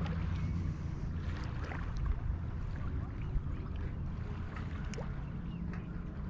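Steady low rumble of wind over open lake water, with a few faint ticks and small chirps scattered through it.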